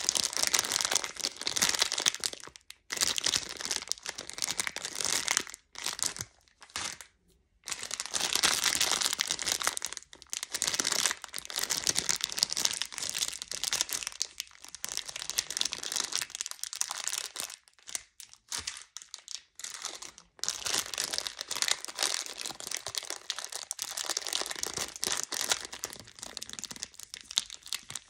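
Clear plastic candy bags crinkling as they are handled and squeezed, in bursts broken by short pauses.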